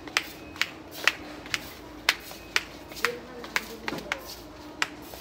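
Footsteps slapping on a concrete floor at a walking pace, about two sharp slaps a second, over a steady low hum with faint voices in the background.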